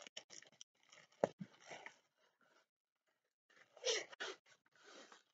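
Clear plastic packaging crinkling and rustling as it is handled, in short faint bursts. There is a sharp knock about a second in and a louder rustle about four seconds in.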